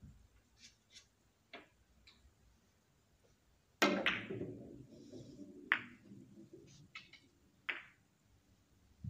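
Carom billiard shot: a sharp cue-tip strike on the cue ball about four seconds in, then the balls rolling on the cloth. Sharp ball-on-ball clicks follow about two and four seconds after the strike. A few faint ticks come first.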